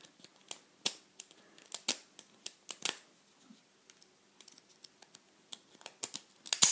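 A cheap unpolished steel pick zipped and raked through a Yale 841 five-pin tumbler padlock: a run of irregular sharp clicks as the pins snap against the pick, growing denser and louder near the end.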